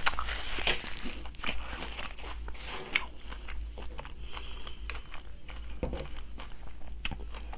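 Close-up eating sounds: a person chewing and biting food, with many small irregular crunches and clicks.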